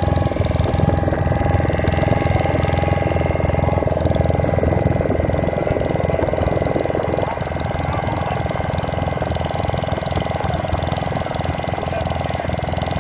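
Fishing boat's engine running steadily, a continuous low rumble with a steady drone above it, slightly quieter from about seven seconds in.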